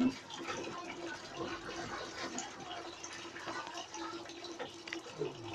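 Water splashing and sloshing in a small top-loading washing machine as wet laundry is lifted out of the tub, over a steady low hum.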